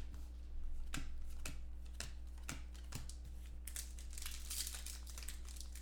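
Foil trading-card pack wrappers crinkling and tearing as packs are opened and cards handled, with light ticks about twice a second, then denser crinkling from about two-thirds of the way in.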